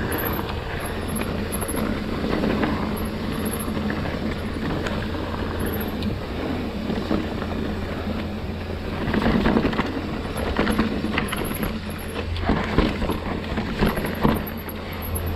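Mountain bike descending a dirt singletrack: a steady rush of tyre noise on the dirt with a low wind rumble on the microphone, and short knocks and rattles from the bike over bumps, busier and louder in the second half.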